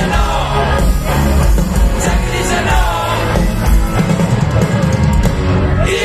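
Live rock band playing through a concert sound system, with electric guitar, drums and a voice singing, heard from among the audience.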